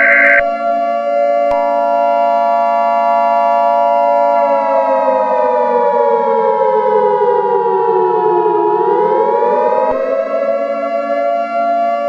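Civil defense warning siren wailing: it holds a steady pitch, sags lower over several seconds past the middle, then climbs back up. Over it, from about a second and a half in until near the end, runs a steady two-note electronic tone, the Emergency Alert System attention signal. A high electronic beep cuts off just after the start.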